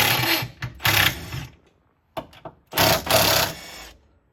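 Power wrench running in two bursts of about a second each, spinning off the upper mounting nuts of a rear strut.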